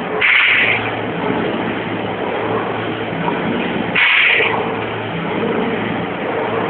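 Industrial machinery running with a steady hum, broken by a short hiss that recurs every few seconds: once just after the start and again about four seconds in.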